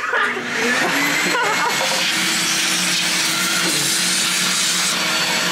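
Wet/dry shop vacuum running steadily, its hose nozzle sucking water out of a car's door panel and carpet.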